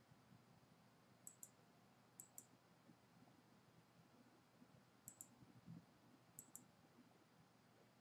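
Faint computer mouse clicks: four pairs of quick clicks, spaced a second or more apart, as lines are picked one by one on screen.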